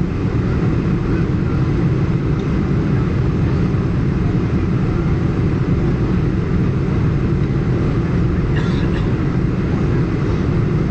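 Steady low rumble inside the cabin of a four-engine Boeing 747-400 on final approach: engine noise and rushing air over the fully extended flaps, heard from a seat by the wing.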